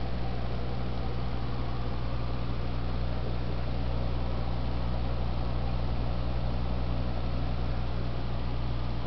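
Aquarium air pump humming steadily, under an even hiss of bubbling water from the air stream in the tank.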